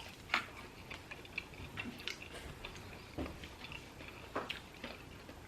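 Quiet, irregular clicks and smacks of someone chewing food close to the microphone.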